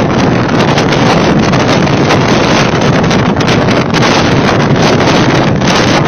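Storm wind blasting straight onto a phone's microphone: a loud, continuous rush of wind noise with constant small surges and no let-up.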